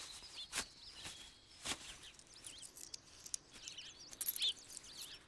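Small birds chirping now and then in the background, short high chirps, with a few faint clicks.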